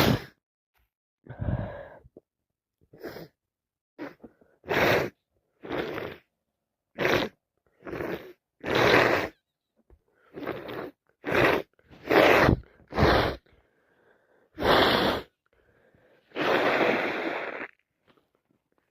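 A sick person coughing and sneezing in a long fit: about fifteen short, explosive outbursts about a second apart, then one longer, drawn-out one near the end.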